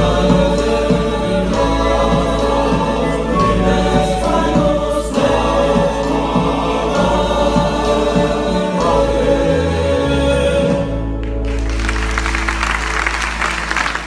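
Male voices singing together in harmony over strummed and plucked acoustic guitars and other strings of a folk parranda. The song ends about 11 seconds in and applause follows.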